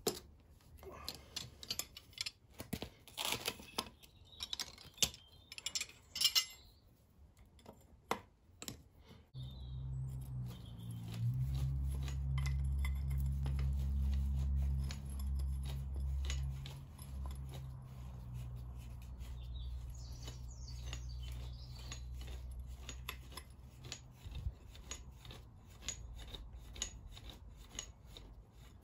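Metal clicks and clinks of hand spanners working the old, rusted track rod end off an MG TF rear long trailing arm. From about ten seconds in, a low steady drone joins and carries on for some fifteen seconds under the clicks.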